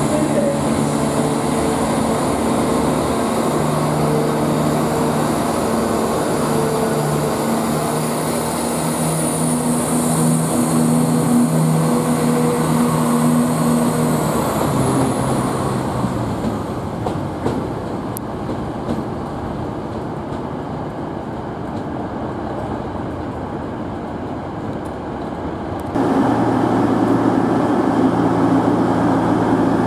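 CrossCountry Class 170 Turbostar diesel multiple unit, its underfloor diesel engines running with a steady whine as it pulls out of the platform, fading away after about 15 seconds. About 26 seconds in, a louder low rumble starts suddenly.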